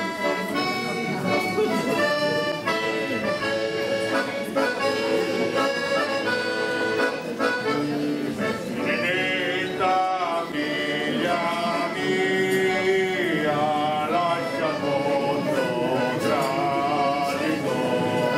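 Diatonic button accordion (organetto) playing a lively folk tune, with voices singing along from about halfway through.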